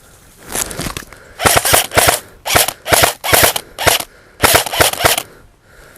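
Airsoft gun firing in about seven short rapid bursts, each a quick rattle of shots, over four to five seconds.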